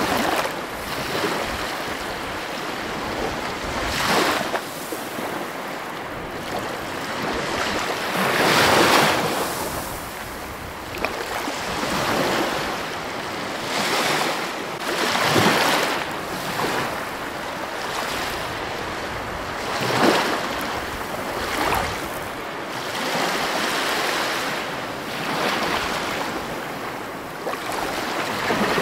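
Sea waves breaking and washing over rocks, the surf swelling into a louder rush with each wave every few seconds.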